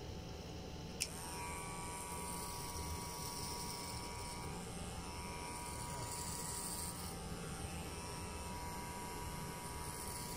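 A sharp click about a second in, then a cordless electric hair clipper running steadily as it trims the hair at the side of the head by the ear.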